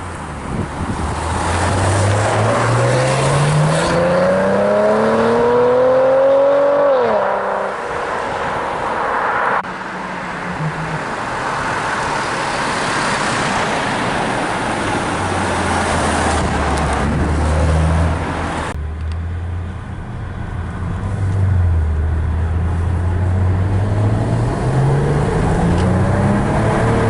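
Maserati Ghibli V6 engine accelerating hard. Its note climbs steeply for about six seconds, then drops off sharply. It then runs lower and steadier and starts climbing again near the end.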